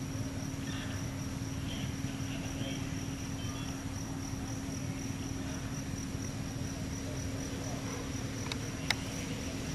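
Outdoor ambience: a steady high insect drone over a constant low hum and rumble, with a few faint chirps early and a sharp click near the end.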